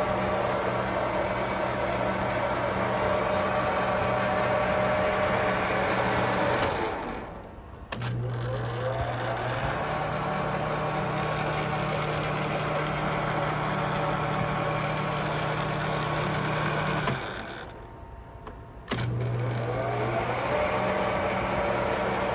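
JET metal lathe running with a steady motor hum and gear whir. It is switched off twice and winds down over about a second, then each time restarts with a click and a whir that rises as the spindle spins back up.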